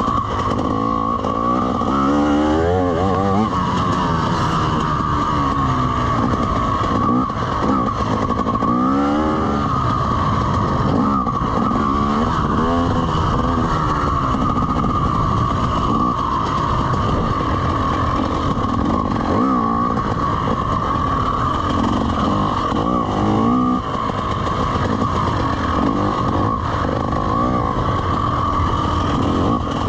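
TM EN300 two-stroke enduro dirt bike engine running under a rider, its revs rising and falling over and over as the throttle is worked.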